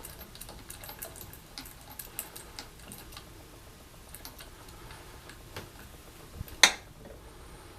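Phillips screwdriver driving the screw into a new shower handle: faint scattered clicks and ticks of metal and plastic, with one sharper click about six and a half seconds in.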